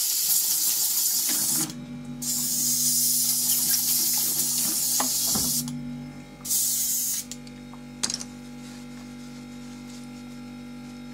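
Airbrush being flushed through with cleaner: three long bursts of hissing spray, the last one short and ending a little after seven seconds in. A steady low hum sets in about a second and a half in and runs on, with a single sharp click about eight seconds in.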